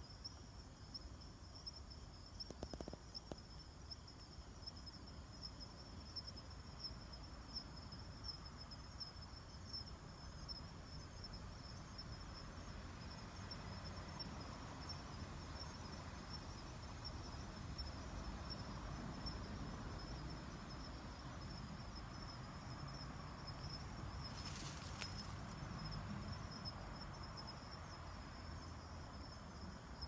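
Kanetataki cricket (Ornebius kanetataki) calling: a faint, thin, high-pitched song that carries on steadily, with a brief burst of noise about 25 seconds in.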